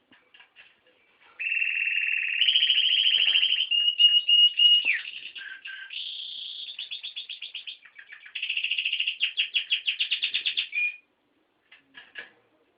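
Male canary song: a long, loud phrase of rapid trills, a held steady note that slides down at its end, and fast repeated notes. It starts after a few soft chirps and stops about a second and a half before the end, followed by a couple of soft chirps.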